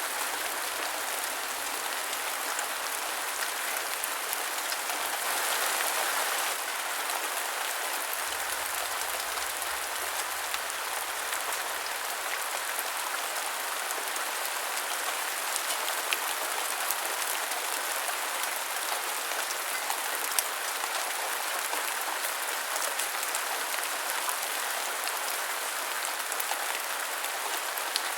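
Rain falling steadily onto a surface, an even hiss dotted with sharp individual drop hits, swelling briefly louder about five seconds in.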